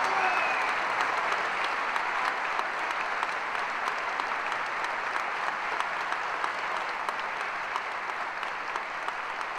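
Theatre audience applauding as the song ends: dense, even clapping that slowly tapers off.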